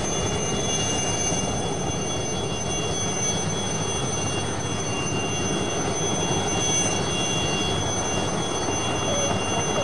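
Aérospatiale SA315B Lama helicopter's Turbomeca Artouste turboshaft running steadily on the ground during run-up. Several steady high turbine whines sit over a loud, even rush of engine and rotor noise.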